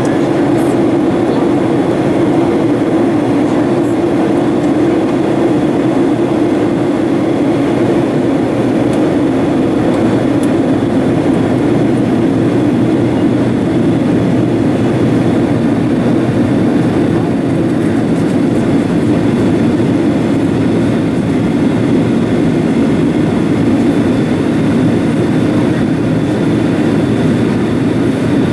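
Steady cabin roar of a Boeing 737-800 in descent, heard from a window seat beside its CFM56-7B turbofan engine: engine and airflow noise as an even, deep rumble.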